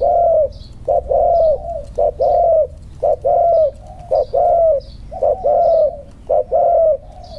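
Spotted dove cooing over and over, each phrase a short note followed by a longer falling coo, about once a second. Faint high chirps sound between the coos.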